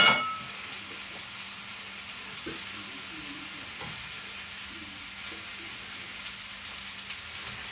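Chopped bell peppers sizzling steadily in a hot pot on the stove as they are stirred with a spoon, with a few soft scrapes. A single ringing clink of utensil on cookware right at the start.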